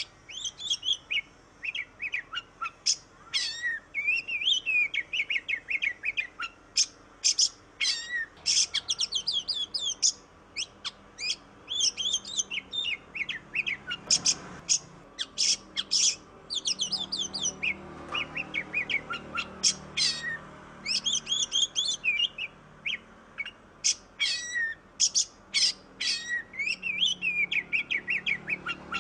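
Oriental magpie-robin (kacer) singing a fast, varied song of sharp whistled notes and chattering phrases, with barely a pause. This is the full 'gacor' song that keepers play to draw a silent bird into singing.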